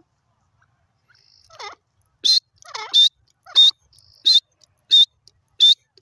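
Grey francolin calling. After a quiet second and a half comes a series of loud, sharp notes about every 0.7 s, with lower, wavering chattering notes between the first few.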